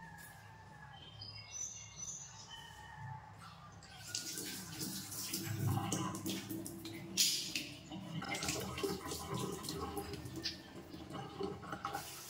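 Kitchen tap running into a stainless steel sink while eggs are rinsed by hand, the splashing louder from about four seconds in. There are a few light knocks, the sharpest about seven seconds in.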